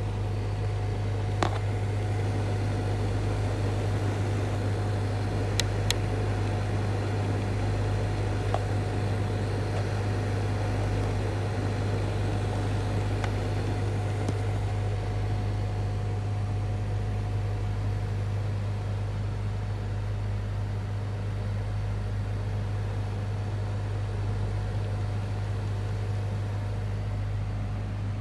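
Steady low hum in a Toyota Harrier's cabin, with a faint steady higher tone and a few light clicks about one, six and eight seconds in.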